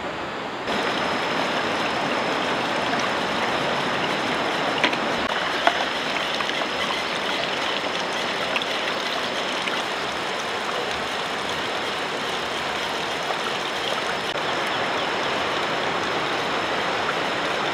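Water running from an outdoor tap and splashing into a pot and basin while dishes are scrubbed, with a few light clinks of dishes. The steady rush starts suddenly less than a second in.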